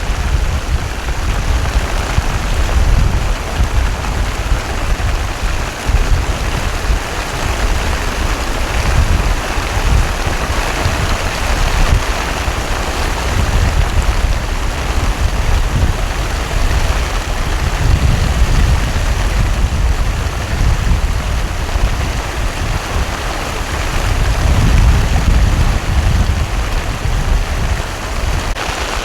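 Heavy rain pouring down steadily in a torrential downpour, with a deep low rumble that swells and fades again and again, loudest near the end.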